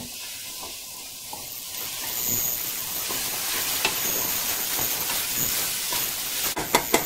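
Chopped white onions sizzling in bacon grease in a stainless steel stockpot as they sweat and are stirred with a spoon; the sizzle grows louder about two seconds in, with a few sharp clicks near the end.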